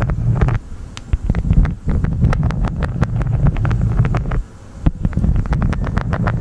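Honeycomb wax crunched close to the microphone: dense, irregular sticky crackles and clicks over a low rumble of wind on the microphone, easing off briefly twice.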